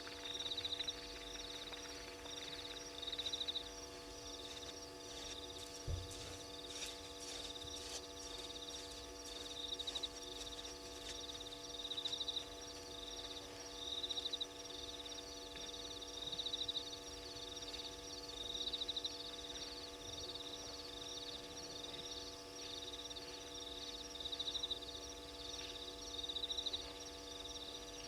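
Night-time animal chorus: short, high-pitched pulsed trills repeating every second or two, over a steady electrical hum. A single low thump comes about six seconds in, followed by a few scattered clicks.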